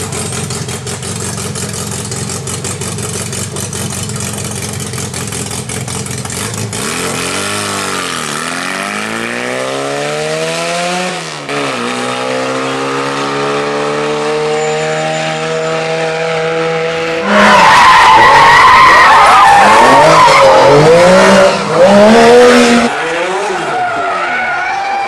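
Rally car engine running steadily, then revved up and down a few times from about seven seconds in and climbing in pitch. About seventeen seconds in it turns much louder, the car accelerating hard with tyre squeal for about five seconds.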